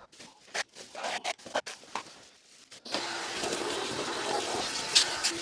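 A run of sharp knocks and clicks. About three seconds in, a steady machine hum with a hiss cuts in suddenly and keeps running.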